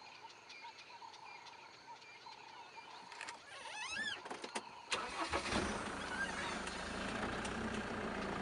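Game-drive vehicle's engine starting about halfway through, then running steadily. Before it starts there are faint, evenly repeated chirps.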